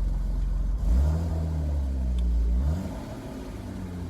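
Car engine heard from inside the cabin, accelerating about a second in, with the pitch climbing then holding. It picks up again briefly a little later, then eases off as the car slows or coasts.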